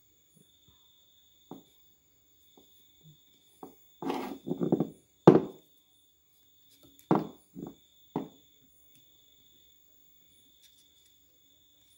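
Handling noise on a workbench: a scattered series of short knocks and rustles as wires and components are moved by hand, loudest about five seconds in, with a faint steady high-pitched tone underneath.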